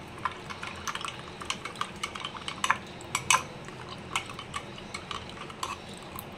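Steel spoon stirring milk in a glass tumbler, clinking against the glass again and again at an irregular pace.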